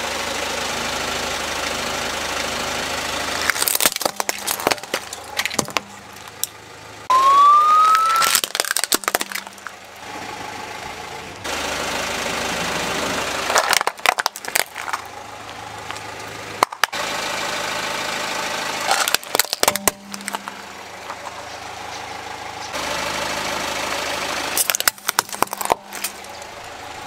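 A car idling and rolling its tyre onto plastic toys, with clusters of sharp cracking and crunching as the plastic breaks, about five times. A short rising squeal sounds about seven seconds in.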